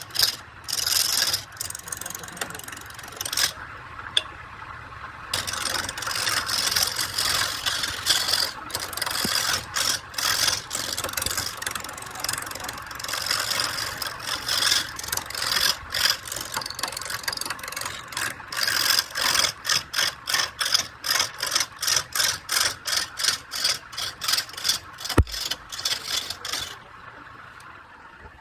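Wood being cut on a lathe, the tool scraping the spinning wood in short repeated strokes that fall into a quick regular rhythm in the second half. The cutting stops shortly before the end.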